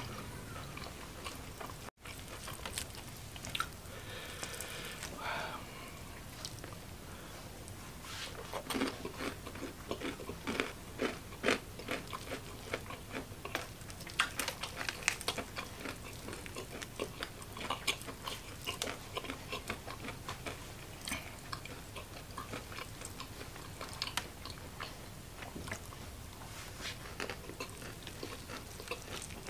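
A person biting and chewing spicy fried chicken with rice and lettuce close to the microphone, with many short crunches. The crunches come thicker from about nine seconds in.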